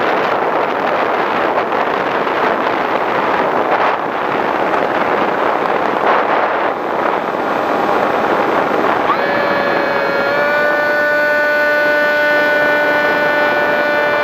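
Wind rushing over the onboard camera microphone of a Skywalker v6 FPV plane, mixed with the whine of its 910kv electric motor and propeller. About two-thirds of the way in, the whine comes through as a steady, clear tone with several overtones.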